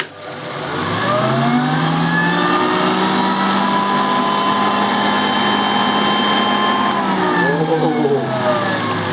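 Nilco 271 commercial upright vacuum cleaner switched on, its motor and brush roll, now fitted with extra brush strips, whining up to speed over a second or so. It runs steadily, then winds down with falling pitch about seven seconds in.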